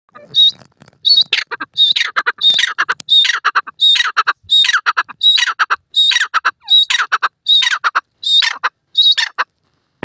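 Grey francolin giving its loud long call: a quick run of repeated phrases, about three every two seconds, each a high note falling into a cascade of lower notes. It stops near the end.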